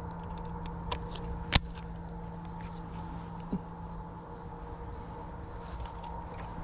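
Evening insects, crickets, trilling steadily in a high band, over a steady low hum. A few light clicks, the sharpest about a second and a half in.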